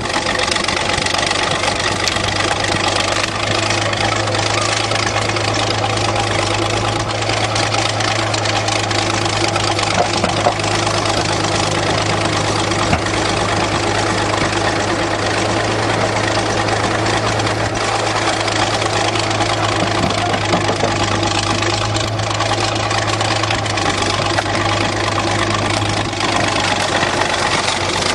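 An engine idling steadily, with an even low hum and no change in speed.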